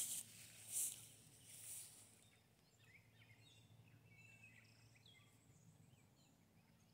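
Three footsteps about a second apart, then faint high chirping of birds.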